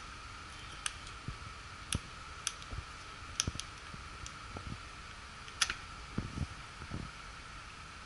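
Irregular light clicks and taps of hands handling the plastic wiring-harness plugs and leads on an X13 ECM blower motor's control module, with a few soft low knocks, over a faint steady high hum.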